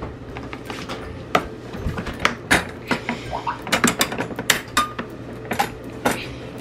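Metal wire door of a plastic pet carrier rattling and clicking as small hands fiddle with the wire and its latch: a string of sharp metallic clicks and knocks, thickest from about two seconds in.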